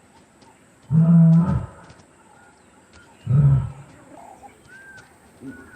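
Lion giving two short, low calls about two seconds apart.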